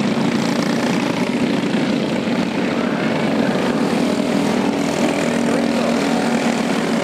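Several go-kart engines running together on track, a steady drone made of a few close pitches that drift slightly against each other.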